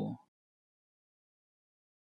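Silence: a pause between recorded spoken words, with the end of one word trailing off in the first instant.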